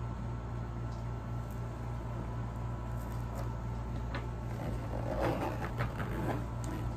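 Handling of a nylon pistol belt pouch: soft rustling and a few light clicks in the second half as its front flap is folded shut over the pistol and pressed down. A steady low hum runs underneath.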